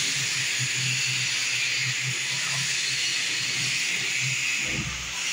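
A steady hiss with a low hum beneath it, and a brief low rumble shortly before the end.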